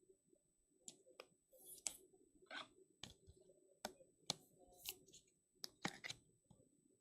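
Faint handling of trading cards and their packaging: a string of sharp clicks and a few short swishes, the busiest stretch between about one and six seconds in.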